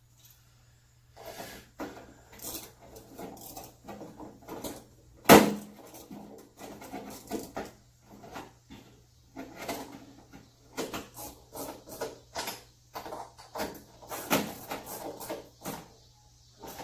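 Handling sounds from hands working in a car's open trunk: irregular clicks, rustles and knocks, with one sharp knock about five seconds in, over a steady low hum.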